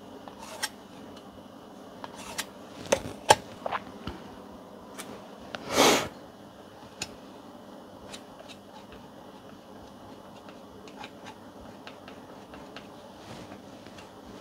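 Steel putty knife scraping and tapping against a metal scraper blade while two-part body filler is mixed and picked up on it: scattered small clicks, a few sharp taps around three seconds in, and one longer scrape about six seconds in.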